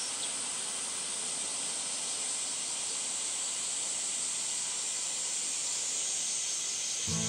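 Steady chorus of cicadas: a dense, even high-pitched hiss that swells slightly towards the end, with music starting just as it closes.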